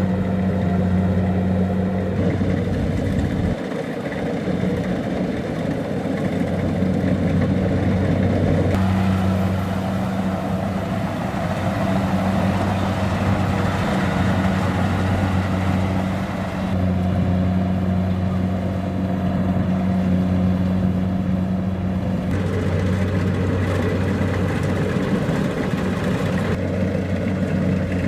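Kubota DC-70 Plus rice combine harvester's diesel engine running steadily under load, with the dense clatter of its cutting and threshing machinery. The sound shifts abruptly a few times.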